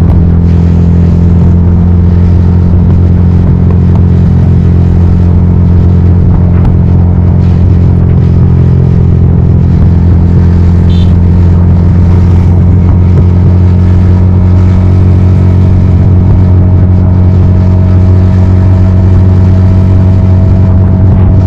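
Yamaha XSR155's single-cylinder 155 cc four-stroke engine running at a steady engine speed through a homemade full-system exhaust while cruising.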